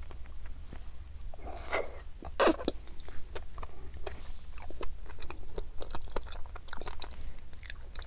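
Close-miked chewing of flying fish roe (tobiko), the small eggs popping in a quick run of crisp clicks, with a couple of louder wet crunches about two seconds in.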